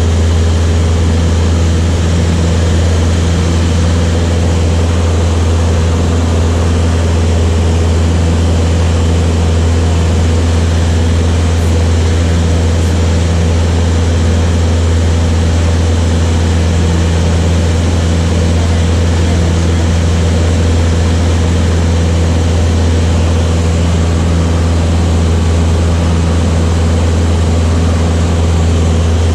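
Light propeller aeroplane's piston engine running at a steady cruise setting: a loud, unchanging low drone with a few steady tones above it.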